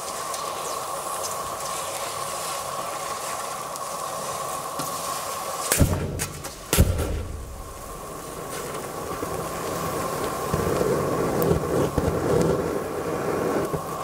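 Molten metal poured onto a disposable butane lighter, hissing as it lands, until the lighter bursts with two sharp bangs about a second apart near the middle. Burning gas then rushes out of the ruptured lighter in a rough, uneven flare.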